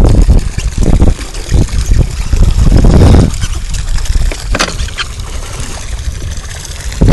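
Water splashing and sloshing against a small boat's side as a hooked wahoo thrashes at the surface beside it, over a heavy low rumble. A brief sharp sound comes about four and a half seconds in.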